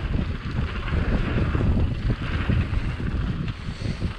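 YT Capra Core 1 MX full-suspension mountain bike riding fast down a dirt singletrack: a steady rumble of wind buffeting the microphone and tyres rolling over dirt, with constant small rattles and knocks from the bike over bumps.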